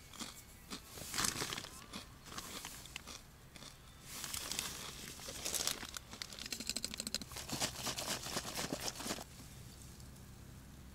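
Crinkling and rustling of a crisp plastic snack bag being handled and opened, in several bursts, the longest and most crackly near the end.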